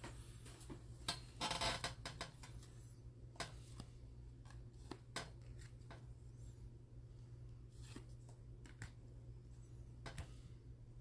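Faint handling of freshly unwrapped Donruss baseball cards: cards sliding against one another and tapping down onto a table, with a brief rustle about a second and a half in.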